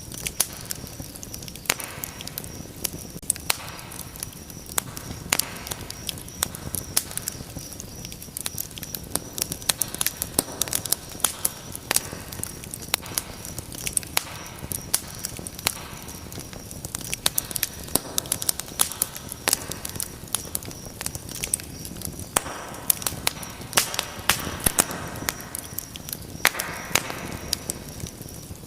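Wood fire burning in a fireplace, crackling with frequent sharp pops and snaps at an uneven pace over a low, steady rush of flame.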